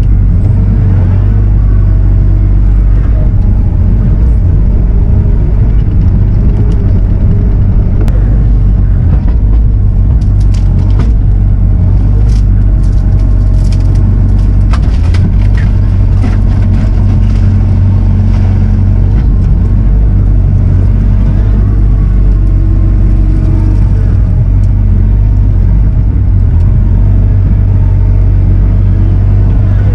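Diesel engine of a compact construction machine running steadily and loudly under work, with scattered clanks and scrapes through the middle as the fence junk is torn down.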